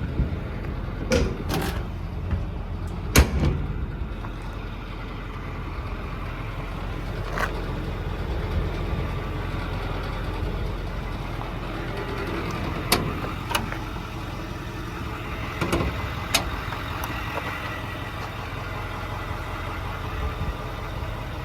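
Diesel truck engine idling with a steady low rumble. A scattering of sharp metal clunks and clicks falls over it, the loudest about three seconds in, like the service body's compartment doors and latches being worked.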